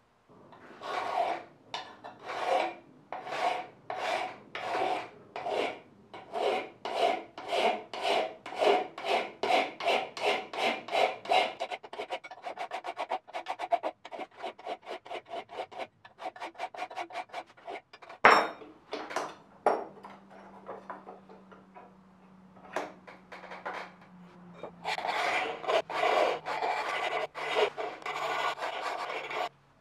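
An old hand file rasping back and forth across the scale-covered bevel of a forged steel knife blade held in a vise, in repeated strokes that quicken to about two or three a second. A sharp knock about two-thirds of the way through is the loudest moment; after it the strokes come lighter and sparser, then turn quick and steady again near the end.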